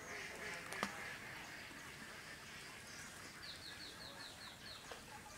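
A bird calling, faint: a quick run of about eight short, high, falling notes lasting just over a second, over quiet pond-side ambience. A single soft knock comes about a second in.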